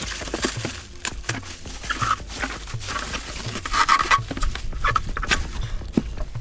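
Large plastic mixing buckets being handled, with crinkling plastic wrapping and a run of hollow knocks and clatter.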